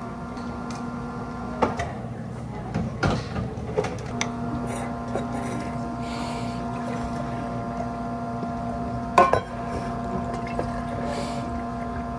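Milk poured from a plastic gallon jug into stainless steel milk pitchers, over a steady hum. A few knocks of the jug and pitchers on the counter, the sharpest about nine seconds in.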